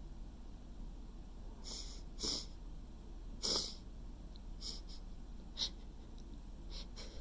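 A person's short, sharp breaths, a handful of them spread through, the loudest about three and a half seconds in: the build-up to a sneeze.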